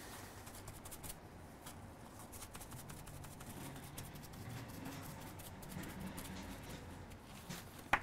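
Paper towel rustling and rubbing over a circuit board as the freshly soldered board is wiped clean, with many small crisp ticks. A sharp click near the end.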